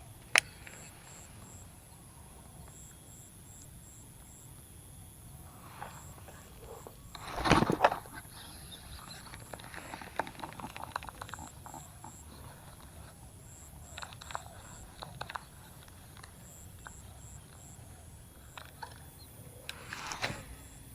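Outdoor ambience with an insect chirping in short, evenly repeated pulses. A sharp click comes just after the start, and a louder rushing noise comes about seven seconds in and again near the end.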